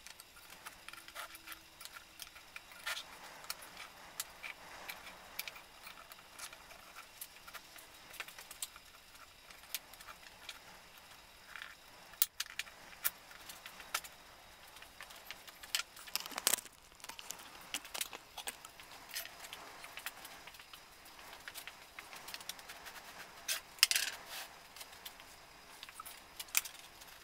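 Light wooden clicks and clatter as thin elm slats are handled, set down and pushed against one another on a bench, with a few louder knocks about halfway through and near the end.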